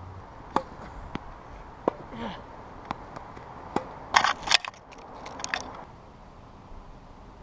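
Tennis ball popping off rackets and bouncing on a hard court: a string of single sharp pops spaced about a second apart, with a short louder burst of noisy scraping about four seconds in.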